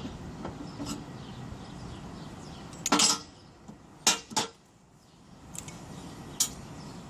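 A few sharp metallic clanks and knocks of hard objects being handled: one loud clank, two quick ones about a second later, and a lighter one near the end, over a low steady background rumble.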